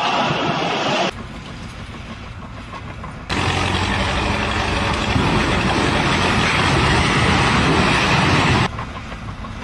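Steady motor-vehicle engine and road noise, broken by abrupt cuts: it drops away about a second in, returns louder about three seconds in, and drops again near the end.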